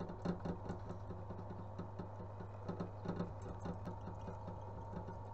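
Bench pillar drill running, its bit boring a 4 mm hole through a small steel pin: a steady low motor hum with a soft regular pulse two or three times a second and faint scratchy cutting ticks.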